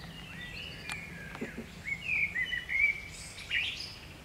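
Birds singing in trees: a quick run of short chirping notes, loudest about two to three seconds in.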